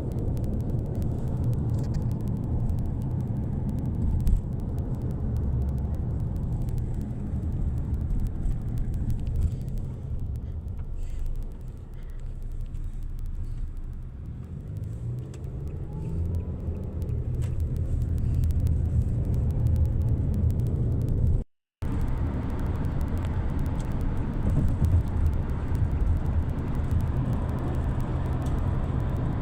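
Road and engine noise inside a moving car's cabin: a steady low rumble that softens for a few seconds around the middle, then builds again as the engine note climbs with the car picking up speed. The sound drops out completely for a split second about two-thirds of the way through.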